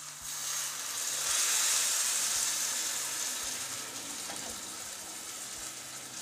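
Water poured into a hot pan of rice fried in oil with chicken and vegetables, hissing and sizzling loudly as it hits the hot pan. The hiss builds over the first second, peaks, then slowly eases off. This is the water being added so the fried rice can cook.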